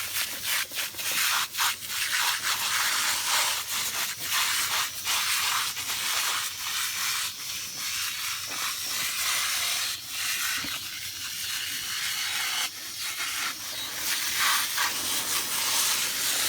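Aerosol can of Frost King foaming coil cleaner spraying onto an air-conditioner condenser coil: a loud hiss in long spurts with brief breaks between them.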